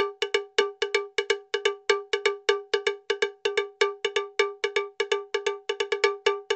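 A single pitched metallic percussion note, struck quickly and repeatedly at about six strikes a second in an uneven rhythm, each strike ringing briefly and dying away.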